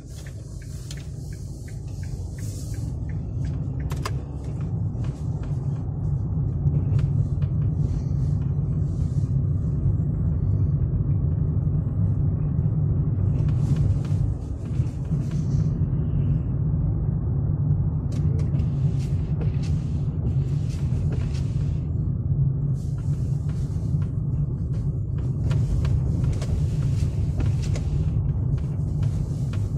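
Car cabin road noise while driving: a steady low rumble from the engine and tyres that builds over the first several seconds as the car gets up to speed. Intermittent hissing crackle comes and goes over it.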